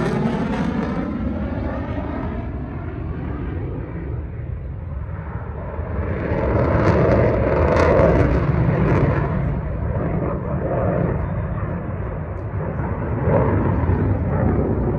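Fighter jet engine noise overhead: a low rumble that fades after a pass, then swells again between about six and nine seconds in.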